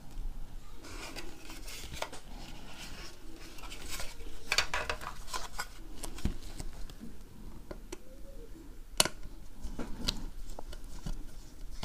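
Small clicks, scrapes and rustling of hands and a small screwdriver working on a drone's plastic shell while taking out the GPS module's screws, with one sharp click about nine seconds in.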